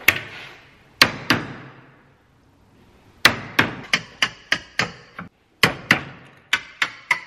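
Hammer striking a wood chisel to chop a shallow rebate into a timber frame, with wood splitting away. A few separate blows, a pause of about a second and a half, then steady runs of sharp strikes at about three to four a second.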